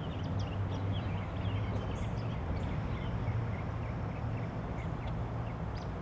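Birds chirping in many short, scattered calls over a steady low hum.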